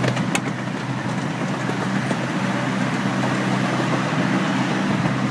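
Amusement-park ride train running steadily along its tracks, heard from on board as an even rumble with a low hum, with a couple of sharp clicks just after it starts.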